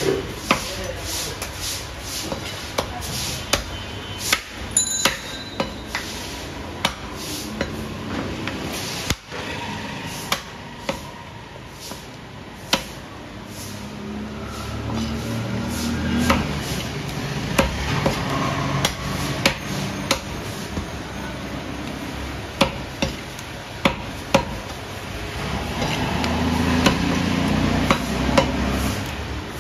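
Butcher's cleaver chopping beef on a wooden block: repeated sharp chops at an uneven pace, roughly one a second.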